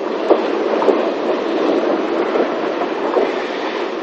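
Narrow-gauge steam tank locomotive moving slowly out of the shed: a steady rumble of steam and running gear with a few irregular knocks.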